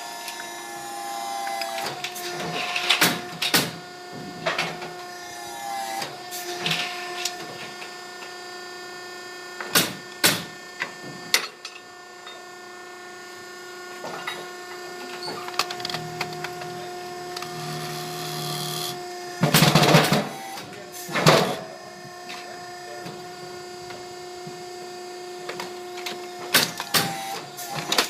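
Atwell portable baler's electric-over-hydraulic power unit running with a steady hum, while scrap copper and metal parts clank and knock at irregular intervals. The loudest clanks come twice, about 20 and 21 seconds in.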